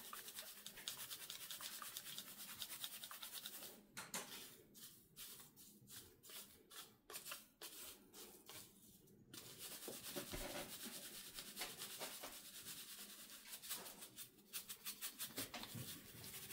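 Dry mealworm bedding being shaken and rubbed across the mesh screen of a 3D-printed frass sifter, sifting the fine frass through. It is a faint, steady rustle, broken in the middle by a run of quick shaking strokes, about three a second.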